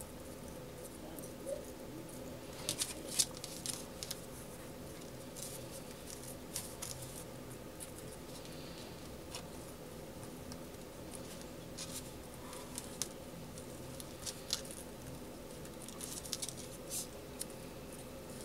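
Faint rustling, scratching and small clicks of hands handling ribbon and winding thread around it, over a steady hum.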